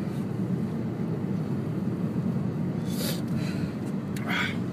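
Steady low rumble of a car's cabin, with two sharp breaths from a person reeling from habanero heat: one about three seconds in and a heavier one near the end.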